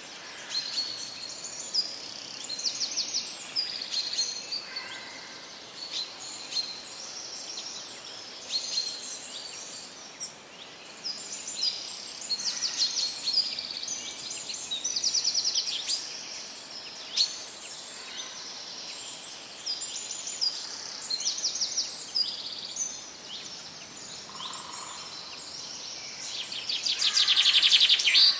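Several birds chirping and singing, with many short high notes and quick trills overlapping throughout. A fast, loud trill comes near the end.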